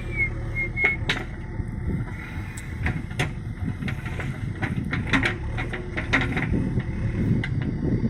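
Backhoe loader's diesel engine running steadily, with irregular knocks and clanks from the working machine. A few short high chirps come in the first second.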